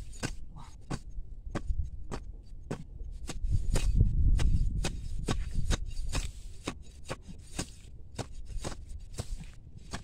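Machete blade scraping and chopping into dry, loose soil: a run of short, irregular scrapes and knocks. A louder low rumble comes in about three and a half seconds in and lasts roughly a second and a half.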